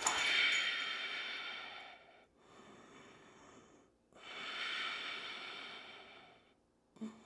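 A person breathing audibly close to the microphone: two long breaths, each about two seconds, strongest at the start and fading away. A brief low sound comes near the end.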